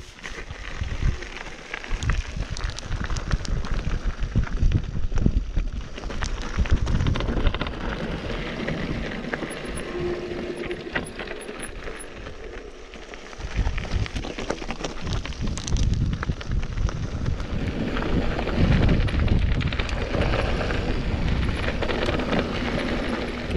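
Mountain bike descending rough, rocky gravel singletrack: the knobby tyres crunch and rattle over loose stones and rock, with many small clicks and knocks from the bike. A low rumble of wind on the microphone swells in the second half.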